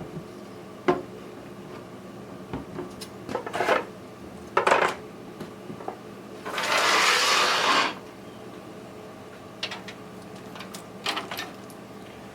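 Knocks and clicks of computer hardware being handled in a PC case as the old motherboard is taken out, with a rustling scrape lasting about a second and a half midway, the loudest sound here. A low steady hum underlies it.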